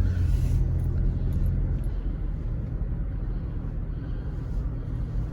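Car driving, a steady low road and engine rumble heard from inside the cabin.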